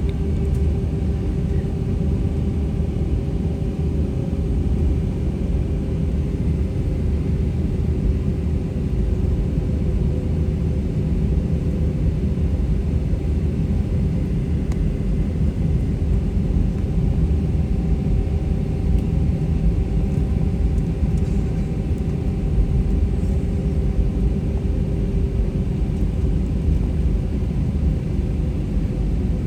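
Airbus A320-200 cabin noise from a seat in the rear half of the cabin: a steady low rumble of the running jet engines, with a faint steady hum over it.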